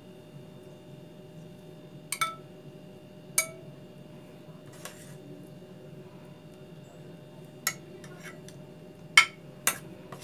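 A metal utensil clinking against the cooking pan and a glass dish as fried grey mullet in curry are lifted out and set down. A handful of sharp, scattered clinks with a short ring, the loudest near the end, over a steady low hum.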